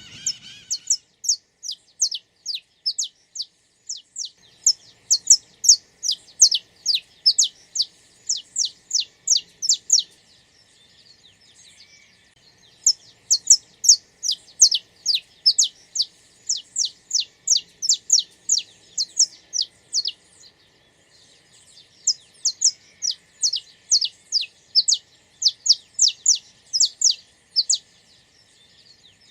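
Saffron finch singing: long runs of quick, sharp downward-sweeping chirps, about three to four a second, in three bursts separated by short pauses.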